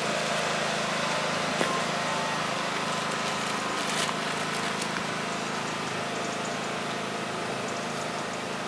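Steady outdoor background noise with a faint low hum while a crowd stands silent, broken by a couple of faint clicks about one and a half and four seconds in.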